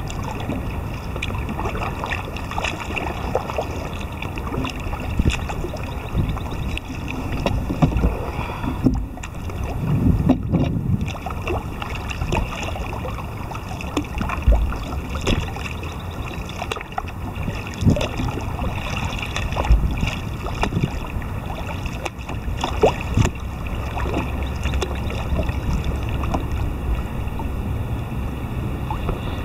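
Wind buffeting the microphone with a steady low rumble, while choppy lake water laps and splashes against a kayak's hull in short irregular slaps.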